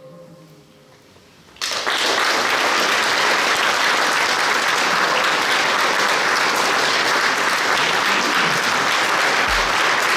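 The last notes of a harp and string ensemble fade away, then about one and a half seconds in an audience starts applauding, a steady clapping that holds to the end.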